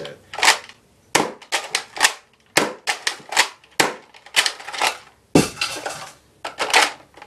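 Nerf Elite Alpha Trooper pump-action blaster being handled: the plastic priming slide racked and the dart clip worked out of the magazine well. A quick, irregular series of sharp plastic clacks and rattles.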